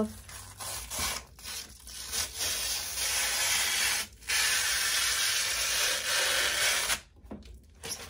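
Clear plastic protective film being peeled off the front panel of a Shopify Counter, giving a steady rasping hiss. It breaks off briefly about four seconds in, then stops about a second before the end.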